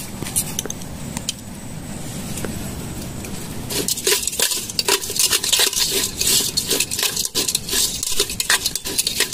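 Shrimp sizzling as they toast in a metal pot. From about four seconds in, a utensil clinks and scrapes against the pot in quick, uneven strokes as they are stirred.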